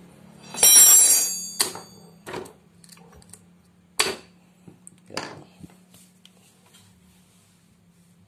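Metal parts of a two-stroke motorcycle engine's gearshift mechanism being handled and fitted into the open crankcase: a loud ringing metallic clang about half a second in, then four sharper metal clicks spread over the next few seconds.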